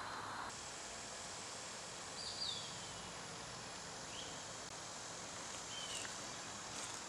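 Faint steady outdoor hum of insects, with a few short, falling bird chirps a couple of seconds apart.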